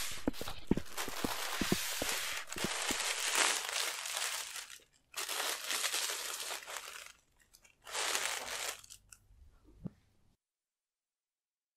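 Crinkling and rustling in three stretches with scattered sharp clicks, falling silent shortly before the end.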